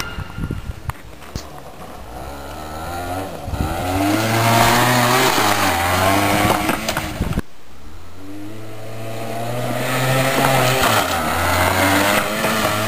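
Motor vehicle engine pulling up through the revs, its pitch rising. It happens twice, with an abrupt cut between the two runs about seven seconds in.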